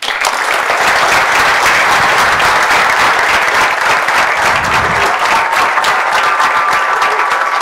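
Audience applauding at the close of a talk: many people clapping at once, loud and steady throughout.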